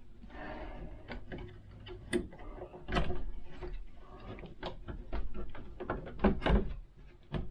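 Door latch and knob hardware clicking, with light knocks, as a solid pine door is worked closed against its newly fitted striker plate to test that the latch goes into the hole. The clicks are irregular, with a louder knock about three seconds in and a cluster near the end.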